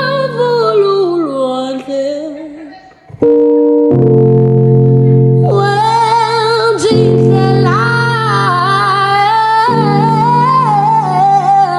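Background song with a female singer over sustained keyboard chords, breaking off briefly about three seconds in before resuming.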